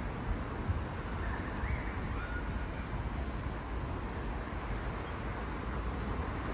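Wind rumbling on the microphone over steady outdoor background noise, with a few faint short high tones between about one and two and a half seconds in.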